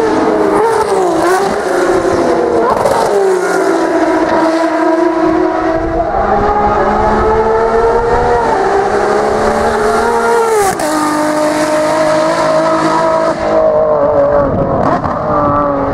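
Ferrari V12 track cars, a LaFerrari FXX K and a 599XX, running at speed past the track edge, the engine note rising and falling through gear changes and throttle. The pitch drops sharply about eleven seconds in as a car lifts off.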